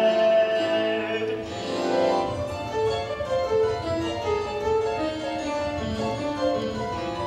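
Instrumental passage of the song's accompaniment: a held note in the first second or so, then a melody of short, separate notes.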